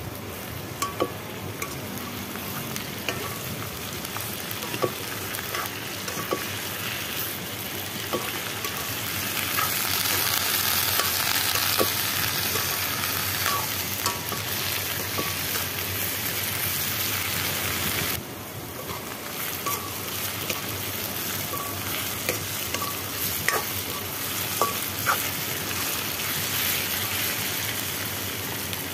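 Sliced onions and leafy greens sizzling in a hot metal wok as they are stir-fried, with a metal spatula clicking and scraping against the pan. The sizzle grows louder for several seconds midway, then drops suddenly.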